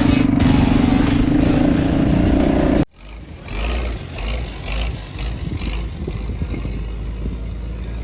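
Dirt bike engine running at steady revs close to the microphone, cut off abruptly about three seconds in. After that come a lower rumble of wind and a few clattering sounds.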